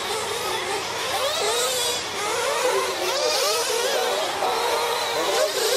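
Several small two-stroke nitro engines of RC race trucks running together at once, each high-pitched whine rising and falling over and over as the throttle is opened and closed through the turns.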